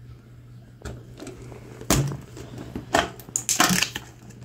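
Stiff clear plastic packaging crackling and clicking as the sealed lid of a Littlest Pet Shop toy tube is peeled open and pulled off. Single sharp clicks come about one and two seconds in, then a crinkly run of crackles a little after three seconds.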